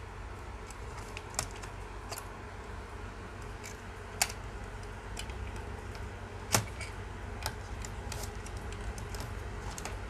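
Scattered small metallic clicks and taps of a screwdriver working the screws and cover of a laptop's hard-drive bay, the sharpest about four seconds in and again about six and a half seconds in. A steady low hum runs underneath.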